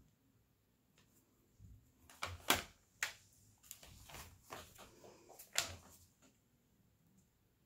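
Small clicks and rattles of resin diamond-painting drills and plastic tools being handled and pressed onto the canvas. The loudest rattles come about two and a half and five and a half seconds in.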